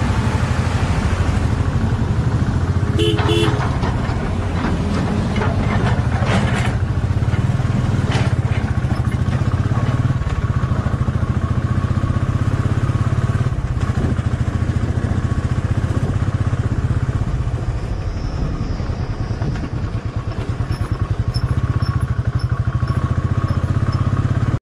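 Motorcycle engine running steadily at low speed on a rough dirt road. A vehicle horn gives two short toots about three seconds in.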